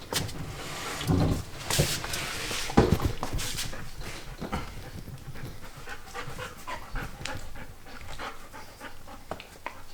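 A dog panting in quick breathy puffs, with a few louder knocks or rustles of movement in the first few seconds.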